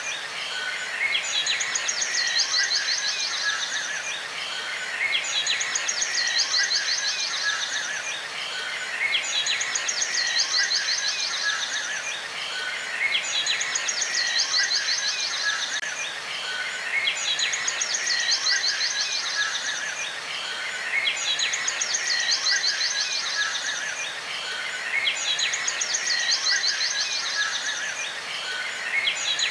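Looped nature ambience: a fast, high trill with chirps beneath it, repeating the same way about every four seconds.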